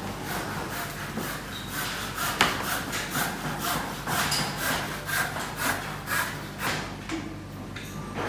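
Hand saw cutting through timber in rhythmic back-and-forth strokes, about three a second, stopping near the end.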